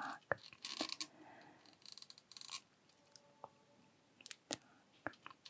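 Fingers handling a Sony a6100 mirrorless camera and its kit zoom lens close to the microphone: soft scattered clicks and two brief scratchy rubbing sounds in the first half, then a few faint taps.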